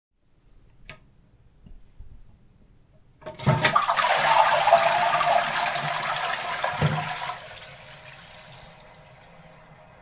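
Toilet flushing: a faint click about a second in, then the flush rushes in at about three seconds and stays loud for about four seconds before dropping to a quieter steady hiss of water as the tank refills.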